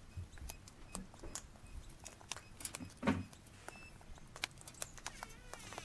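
Scattered light clicks and taps from feeding wild cockatoos, with a soft thump about three seconds in and a short wavering call near the end.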